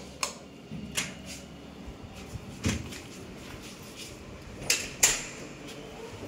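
Scattered sharp clicks and knocks from bathroom fixtures being handled, about six in all, the loudest two close together near the end as the basin tap is turned on, in a small tiled bathroom.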